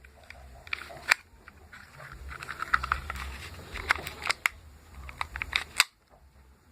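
Handling noise: a string of sharp clicks and taps, the loudest near the end, with clusters of lighter ticks in between.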